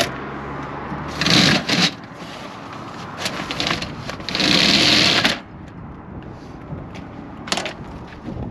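A fire engine's roll-up compartment door pulled down shut, rattling for about a second, after a brief rustle of gear being handled in the compartment. A short sharp click follows near the end.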